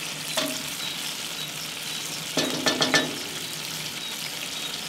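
Diced pork, onions and peppers sizzling steadily in a cast-iron Dutch oven after a half-hour braise, not yet topped up with stock. A wooden spoon stirs the mix, with a click early on and a quick run of knocks and scrapes against the pot a little past the middle.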